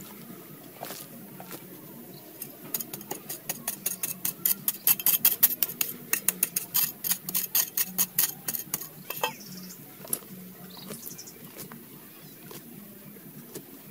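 A long metal blade striking and scraping into hard, dry, stony soil in a fast run of sharp strikes, several a second, from about three seconds in until nearly ten seconds in. Before and after that run, quieter scraping of loose earth and pebbles by hand.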